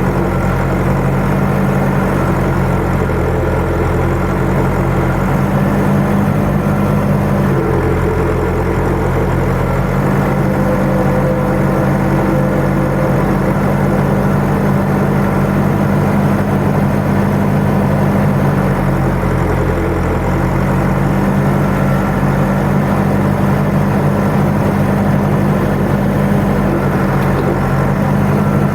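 Tractor engine running steadily, with its low hum shifting slightly in tone a few times.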